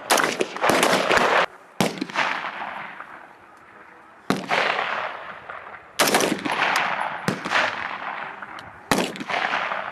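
Rifle fire on a firing range: a string of single shots from several shooters at irregular intervals, several close together near the start, each with a long echoing tail.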